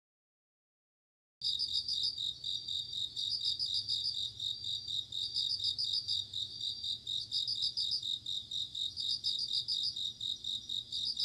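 Crickets chirping in a steady night chorus of rapid, pulsing trills, starting abruptly about a second and a half in after silence.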